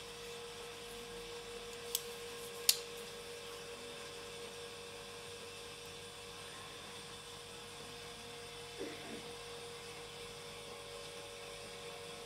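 A Benchmade Mini Presidio folding knife's blade is snapped open, giving two sharp metallic clicks less than a second apart as it swings out and locks. A steady low electrical hum runs underneath.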